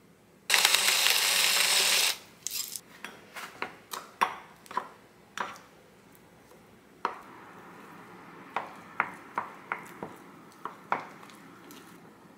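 A squeezed plastic bottle of hazelnut syrup gives a loud hiss for about a second and a half near the start. Then a silicone spatula clicks against a glass mug many times and scrapes around it as cocoa powder is stirred into a thick, sticky mixture.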